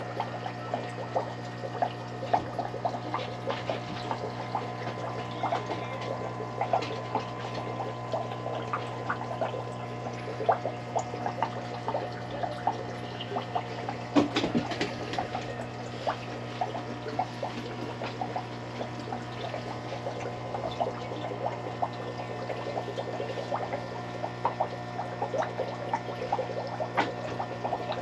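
Aquarium filter running: steady trickling and bubbling water with many small irregular splashes, over a steady low hum.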